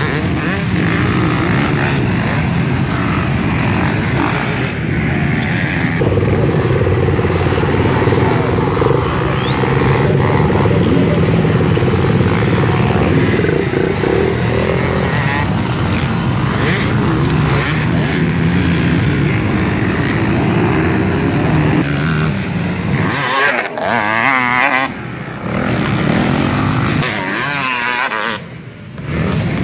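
Several motocross dirt bike engines running as the bikes ride around a dirt track, their revs rising and falling. In the last several seconds a nearer bike is revved hard, its pitch climbing and dropping quickly, with brief drops in loudness between pulls.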